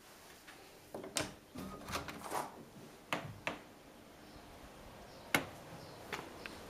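Glass patio door being unlatched with its lever handle and swung open: a cluster of clicks and knocks, then a single sharp click about five seconds in and a few lighter ones near the end.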